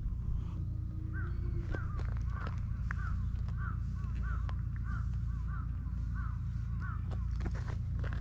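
A bird calling in a quick series of about ten short, arched notes, evenly spaced, over a steady low rumble.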